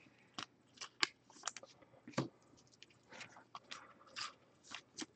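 Trading cards and crinkly plastic packaging being handled: an irregular string of short sharp clicks and rustles, with a couple of longer crinkles about three and four seconds in.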